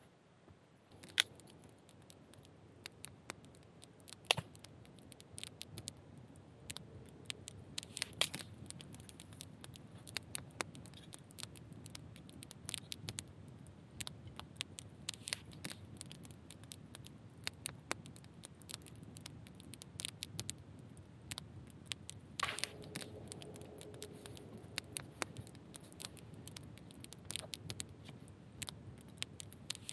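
Footsteps crunching through snow: a steady, irregular run of crisp crackles that starts about a second in.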